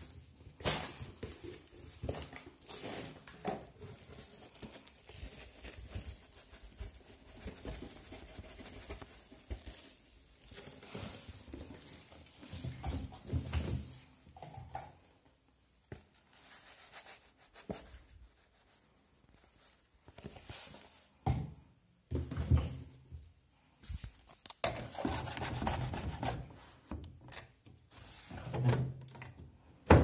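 Irregular handling noises: a plastic bag rustling and rubbing, with occasional knocks, in a small room.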